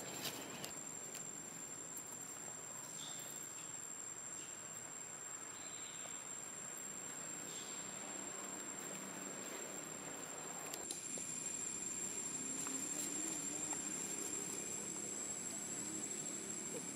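Insects buzzing in one steady, high continuous tone, a little louder in the second half.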